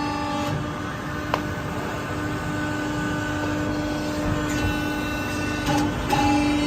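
CNC press brake running: a steady mechanical hum with a whining overtone over rough workshop noise, briefly breaking about two seconds in and changing near the end, with a single sharp click about a second and a half in.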